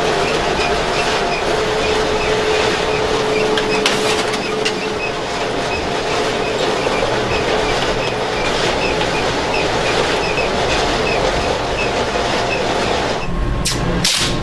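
Loud, steady mechanical running noise with a faint steady hum and small regular ticks, changing abruptly to a different sound about 13 seconds in.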